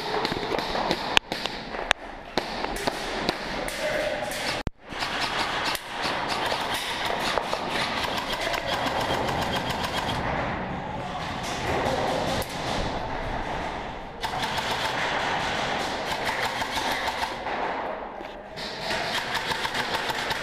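Airsoft guns firing on full auto: a dense rattle of rapid shots that keeps going with short lulls. There are a couple of sharper cracks about one and two seconds in.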